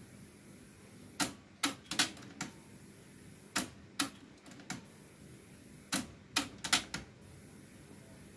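Sony TC-K77R cassette deck's transport mechanism clicking: three bursts of a few sharp mechanical clicks, about two seconds apart, over faint tape hiss.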